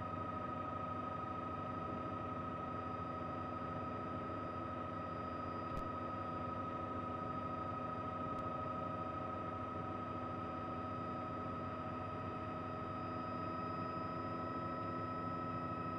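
Steady helicopter noise picked up inside the aircraft: an even mechanical drone with a high, unchanging whine on top.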